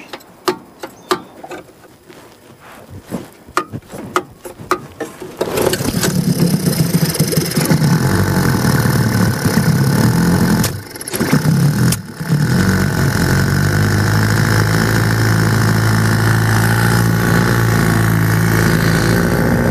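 Clicks and knocks, then a 1947 Johnson TD-20 5 hp two-stroke outboard motor starts about five seconds in on its first test run. It falters twice, nearly dying, and then settles into a steady run.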